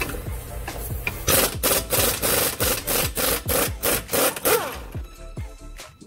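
Impact wrench hammering as it spins the 24 mm nut off the Watts link (bell crank) through-bolt, a rapid run of sharp strokes starting about a second in and stopping near five seconds, over background music.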